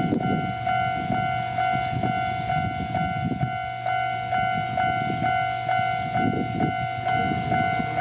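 Electronic level-crossing alarm bell ringing in a steady repeating pattern, about two strikes a second, sounding the warning that a train is approaching. An uneven low rumble runs underneath.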